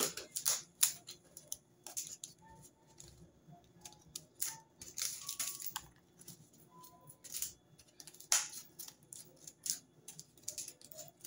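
Scissors trimming cardboard edges: irregular snips and clicks, with the rustle of the cardboard pieces being handled.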